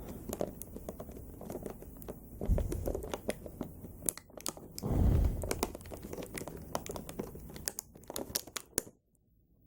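Plastic toy packaging crinkling and crackling as an action figure is worked free of its tray, with many small clicks and two heavier handling bumps about two and a half and five seconds in. It drops to near silence just before the end.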